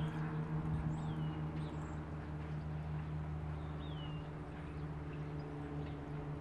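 Muffled hoofbeats of a young Quarter Horse filly moving under saddle on soft arena dirt. Under them runs a steady low mechanical hum, the loudest sound throughout. A few short, falling bird chirps come about a second in and again around four seconds.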